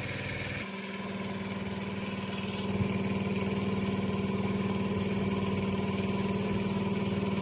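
Small engine running a water pump, holding a steady note that shifts slightly a little under a second in.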